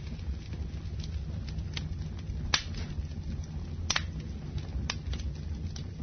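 Wood fire crackling in a fireplace: a steady low rumble of burning with scattered sharp pops, the loudest about two and a half, four and five seconds in.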